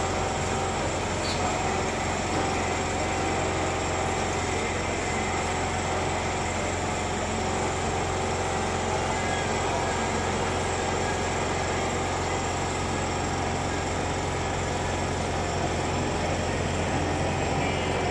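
An engine running steadily, with a strong low hum and no change in speed.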